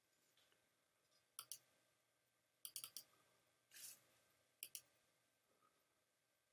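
Faint clicks of a computer mouse button in quick press-and-release pairs, several times over, with a soft brief rustle about four seconds in.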